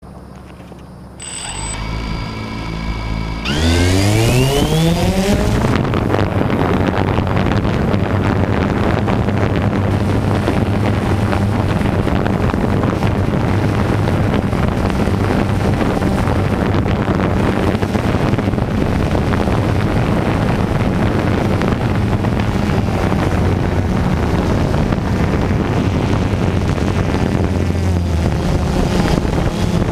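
DJI Phantom 2 quadcopter's electric motors and propellers starting up, with a rising whine about three to four seconds in as they spin up to lift off. This is followed by a steady, loud propeller buzz in flight.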